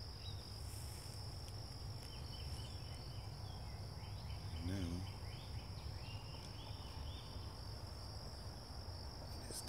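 Insects trilling in one steady, unbroken high note, with short chirping calls scattered through the middle, over a constant low rumble. About halfway, a brief low wavering sound is the loudest moment.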